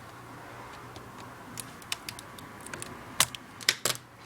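Light plastic clicks and taps of a laptop keyboard being worked loose from its bay, with a few louder clicks about three seconds in, over a steady low hum.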